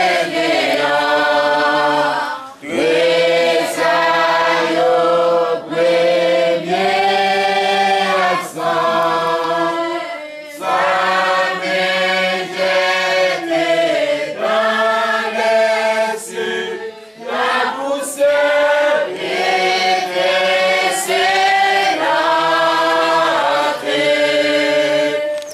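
A church congregation singing a worship song together, many voices in sung lines a few seconds long with brief breaks between phrases.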